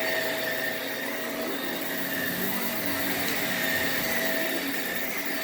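Shark Navigator upright vacuum cleaner running steadily on carpet, a steady motor hum with a faint whine.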